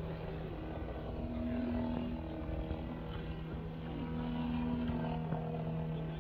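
Pitts Special aerobatic biplane's engine and propeller droning steadily in a vertical climb, with a higher tone coming in twice.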